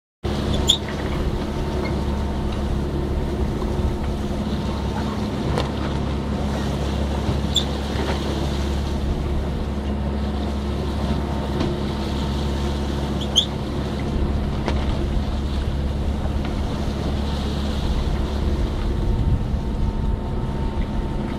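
Sailing yacht under way at sea: wind buffeting the microphone and water rushing along the hull over a steady low hum, with a few short high squeaks.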